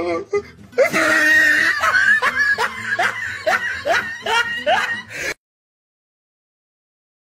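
A man crying in distress: a run of short, rising sobbing cries, two or three a second, that stops abruptly about five seconds in, followed by silence.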